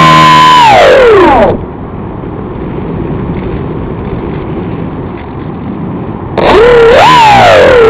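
Electric motor and propeller of a foam RC plane, heard from its onboard camera: the whine drops sharply in pitch and dies away as the throttle is cut about a second and a half in, leaving air rushing past during the dive. About six seconds in the motor spins back up, its pitch wavering up and down with the throttle.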